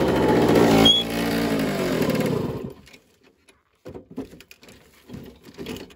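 Jawa 50 type 21 Sport moped's small two-stroke single-cylinder engine revving, its pitch falling away from about a second in until it stops about two and a half seconds in. Faint scattered ticks follow.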